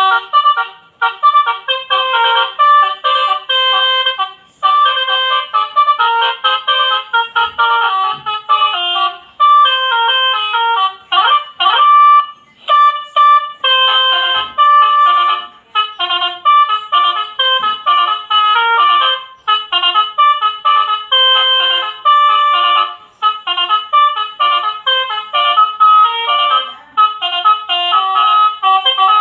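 Basuri telolet horn, a multi-note musical bus horn, playing a quick tune of short stepped notes with brief breaks between phrases.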